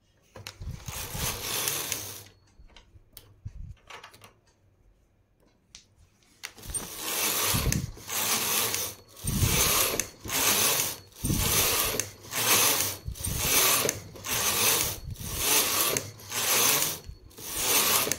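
Carriage of a hand-operated flatbed knitting machine being pushed back and forth across the needle bed, knitting plain rows: one long rasping slide near the start, a few light clicks, then a steady run of quick passes about one a second.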